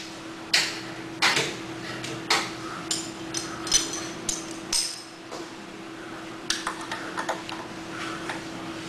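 Sharp metallic clicks and clinks of a wrench and nut being worked onto a mounting bolt. Several clear knocks come in the first half and a quicker run of lighter clicks in the second half, over a steady low hum.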